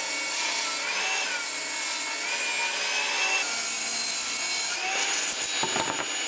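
Table saw ripping an edge off a length of 4x2 softwood, the blade's whine wavering in pitch as the wood is fed through. It cuts off suddenly at the end.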